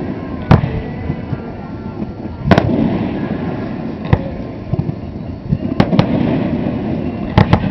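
Fireworks display: aerial shells bursting in a string of sharp bangs, about half a dozen, over a continuous crackle and rumble. The biggest bangs come about half a second in, about two and a half seconds in, and a close pair near the end.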